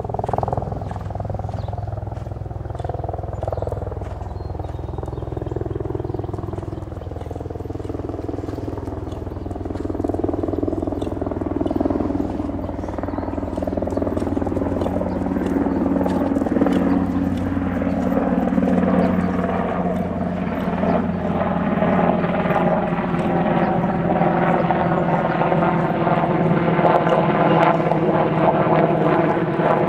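Steady engine drone that grows louder and rises slightly in pitch over the second half.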